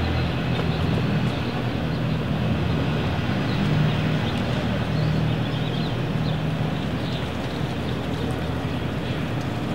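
A steady low motor drone under a continuous outdoor noise, with a few faint high chirps.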